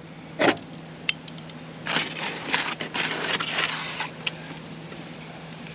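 Aluminium foil crinkling and crackling for a couple of seconds as metal tongs dig into a foil-wrapped packet of grilled vegetables in a foil pan. A sharp utensil knock comes about half a second in, before the crinkling starts.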